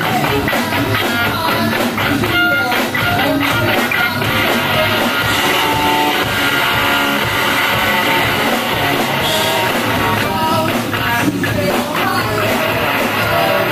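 Live rock band playing: electric guitar and drum kit, with a woman singing.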